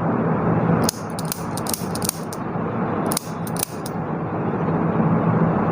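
Steady background noise with a low hum, broken by a quick series of sharp clicks a little after a second in and up to about four seconds in.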